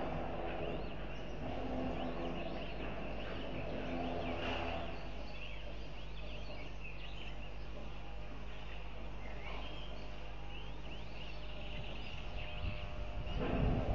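Many short, high bird chirps, with a low buzzing hum that swells and fades several times, loudest in the first five seconds and again near the end.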